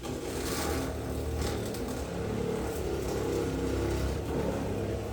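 Craftsman CMEW400 corded oscillating multi-tool running at low speed, its blade buzzing steadily as it slowly plunge-cuts into a soft material.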